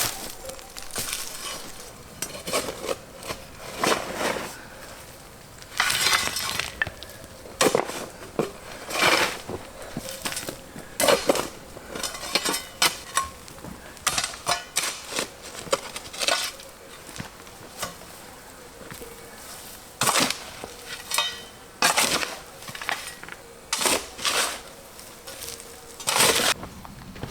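Irregular metal clinks, knocks and scrapes, several every few seconds, some ringing briefly.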